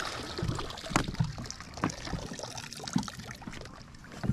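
Water trickling and dripping off a bow-mount trolling motor as it is lifted out of the lake and stowed, with a few light knocks from the motor and its mount.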